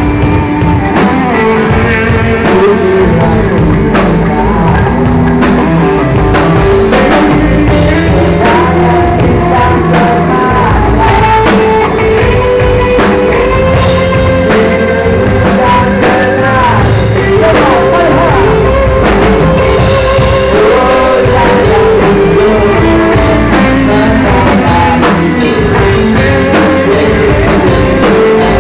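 A rock band playing live and loud, with electric guitar played over the full band and no break in the music.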